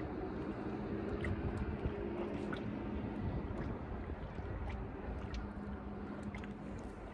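A steady low engine hum over a low rumble. The hum fades out shortly before the end, and a few faint clicks sound.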